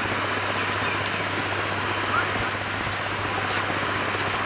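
Shallow river running over rocks: a steady rushing of water.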